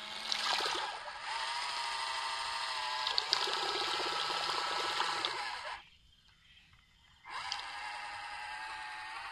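Small electric motor from an RC helicopter, mounted on a homemade RC boat, running with a steady whine while its propeller churns the water, with a few sharp ticks. It cuts out about six seconds in and starts again about a second and a half later.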